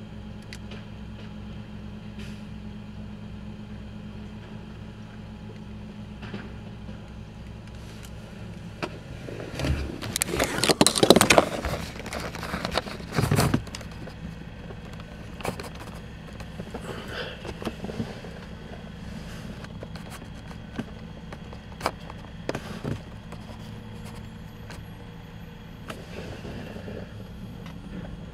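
Rear-loader garbage truck running steadily with its hydraulic packer compacting trash in the hopper. About ten to thirteen seconds in comes a loud stretch of crunching and cracking as the load is crushed, followed by scattered knocks and clunks.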